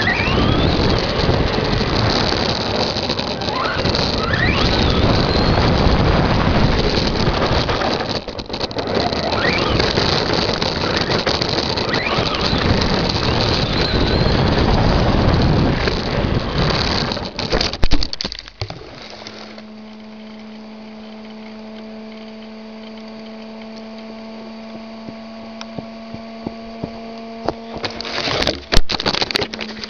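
Tamiya Stadium Blitzer RC truck's electric motor and drivetrain running, with tyre and ground noise picked up on board; the motor whine rises several times as it speeds up. About two-thirds of the way in there are a few sharp knocks, and the noise drops to a steady low hum, with more knocks near the end.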